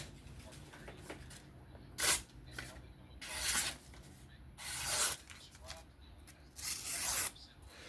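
QSP Penguin knife's 14C28N blade making four short hissing slicing strokes, about a second to two apart: a sharpness test after reassembly.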